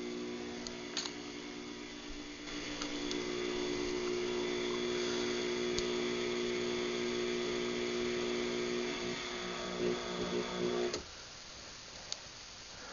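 Craftsman 139.53918D garage door opener motor running steadily through a closing cycle, with a steady hum that wavers in its last couple of seconds and then cuts off about eleven seconds in.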